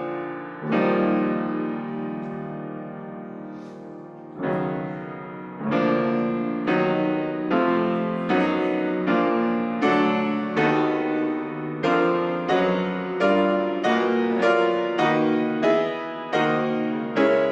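Piano playing slow, sustained chords: one long chord held and fading over the first few seconds, then chords struck at an even, unhurried pace, each ringing on as it fades.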